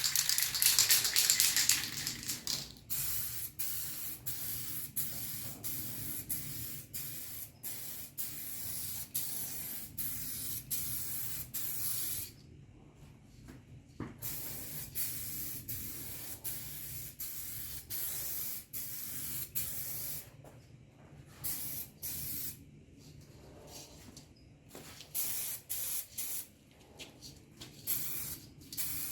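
Aerosol can of 2K clear coat spraying in short hissing passes with brief gaps between them, louder at first, with a pause of about two seconds partway through.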